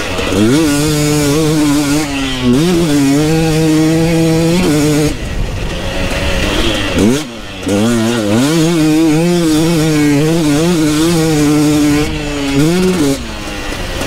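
Two-stroke enduro dirt bike engine ridden hard on a motocross track, revving up and down with the throttle. It holds high revs for stretches, and the throttle is chopped about five seconds in and again near the middle before the engine picks up again.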